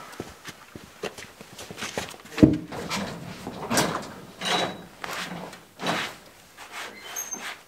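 White pine boards being handled on a sawmill bed: a sharp wooden knock about two and a half seconds in, then several scraping slides of board against board and metal.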